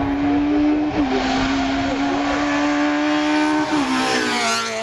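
Opel Astra hill-climb race car's engine at high revs, its pitch dropping abruptly twice as it shifts up. Near the end it passes close by, the engine note falling in pitch.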